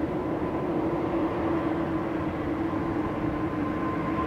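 Jet engines of an Airbus A320neo airliner running as it rolls along the runway: a steady rumble with a held low hum and a thin, higher whine.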